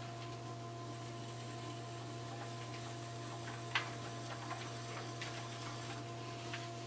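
Electric pottery wheel spinning a Giffin Grip with a steady hum, while a trimming tool shaves the base of a leather-hard clay pot. A few light ticks sound over the hum, the sharpest a little before four seconds in.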